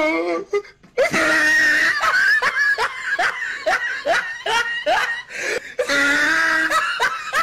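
A person laughing hard, a fast run of repeated bursts that starts after a short pause about a second in.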